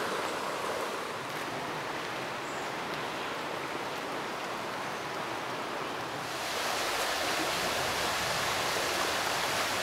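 Steady rushing of the River Dove flowing over a shallow stony bed. About six seconds in it becomes louder and hissier.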